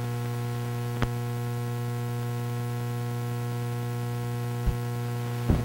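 Steady electrical mains hum with a ladder of evenly spaced overtones, the bare noise of an old film transfer's empty sound track. Three short pops break it, one about a second in and two near the end.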